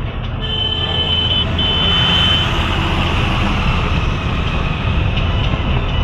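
Truck engine and road noise running steadily, heard from inside the cab while driving. A horn sounds twice, each blast about a second long, in the first few seconds.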